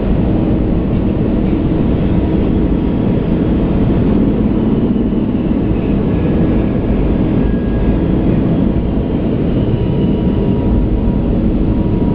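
Airbus A380 flight-deck noise in the initial climb just after gear-up: a steady rushing of airflow and engine noise, heaviest in the low end, with a faint steady hum over it.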